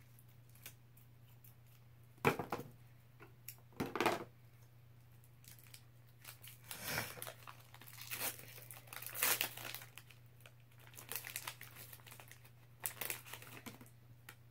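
Foil wrapper of a Pokémon booster pack being torn open and crinkled in a string of short ripping and rustling bursts, the loudest about two and four seconds in.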